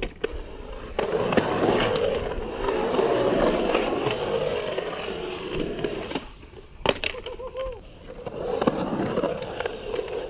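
Skateboard wheels rolling on a concrete bowl, a steady rumble that swells and fades. It drops away briefly before seven seconds in, where a single sharp clack of the board sounds, and the rolling picks up again near the end.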